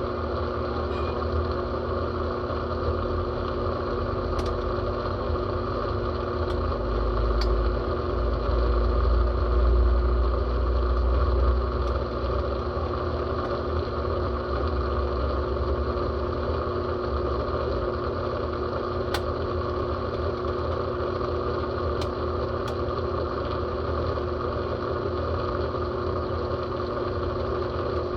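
Brastemp Total 7 kg top-loading washing machine running mid-cycle: a steady motor hum whose low rumble swells from about six seconds in and eases back about twelve seconds in, with a few faint clicks.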